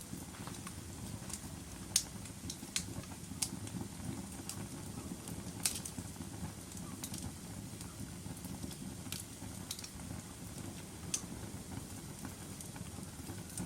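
Wood fire burning in a fireplace: a steady low rumble of flames with sharp, irregular crackles and pops about once a second.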